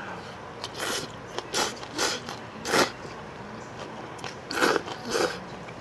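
A person slurping instant ramen noodles from chopsticks: a run of about six short, sharp slurps with brief pauses between them.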